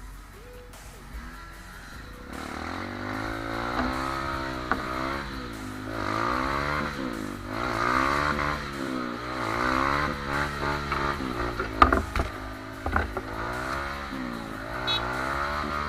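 Trail motorbike engine revving up and down over and over, its pitch rising and falling every second or two, from about two seconds in. A few sharp knocks near the middle.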